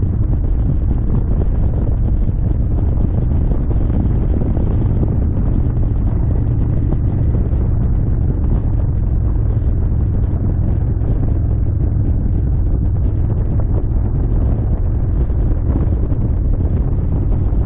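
Wind buffeting the microphone of a motorcycle at riding speed: a steady low rumble.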